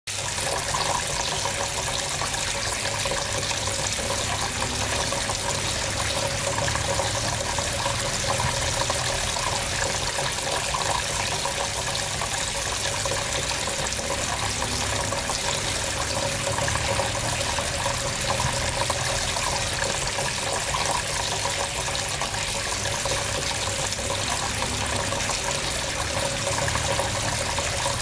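Tabletop rain fountain running: thin streams of water fall from the overhead bar and splash steadily into the water-filled basin below.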